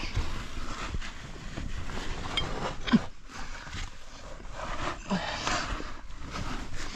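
Caver moving through a cave passage: irregular scuffing and scraping against rock and sand, with occasional knocks and heavy breathing.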